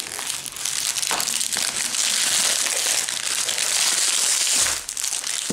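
The wrapper of a mini chocolate surprise egg crinkling steadily as it is pulled open by hand.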